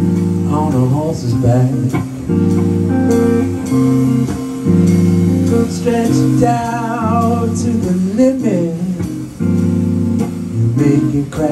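Live blues played on a solid-body electric guitar with drums: an instrumental break in which high notes are bent and shaken with vibrato over steady low chords that change every second or two.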